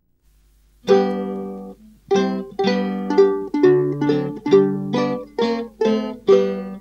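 Instrumental intro of a country song: a plucked string instrument strikes a series of chords, each ringing and then fading. It begins about a second in, after a moment of near silence.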